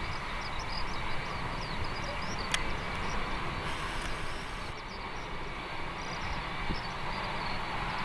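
Steady distant rumble of an Air New Zealand Boeing 787's jet engines as it rolls down a wet runway, with a single sharp click about two and a half seconds in.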